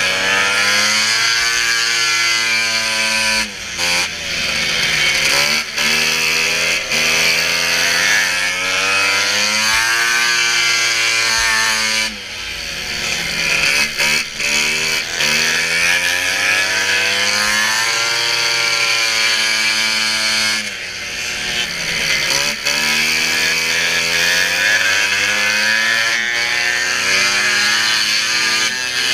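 Two-stroke racing snowmobile engines running hard, their pitch rising and falling again and again as the throttle is opened and let off. The engine speed drops briefly three times, about a third of the way in, near the middle and about two-thirds of the way in.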